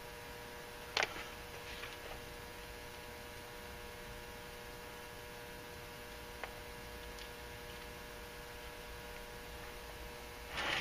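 Steady electrical hum made of several fixed tones, with a faint knock about a second in and a small click a few seconds later.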